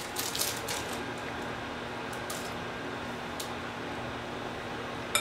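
Microwave oven running with a steady hum while it melts chocolate, started just before with keypad beeps. A few faint clicks and scrapes of a spatula pressing the mixture into a parchment-lined pan.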